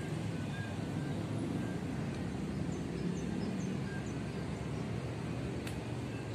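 Steady low outdoor rumble, with a few faint, short bird chirps about three seconds in.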